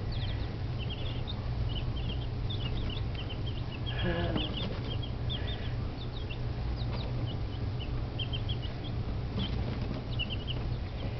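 One-week-old chicks peeping: many short, high peeps one after another from several birds, over a steady low hum.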